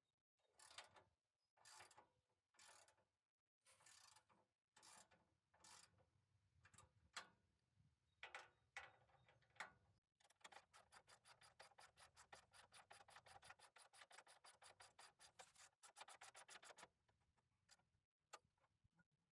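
Faint ratchet wrench clicking, first in slow, uneven strokes, then in a fast even run of about five clicks a second for several seconds before it stops.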